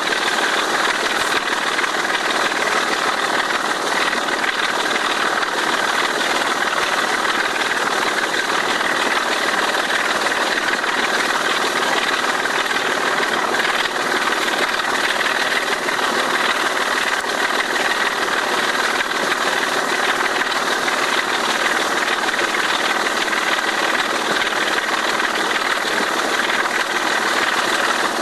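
British Rail Class 25 diesel locomotive D5217's six-cylinder Sulzer 6LDA28 engine working at full power, a loud, steady diesel thrash.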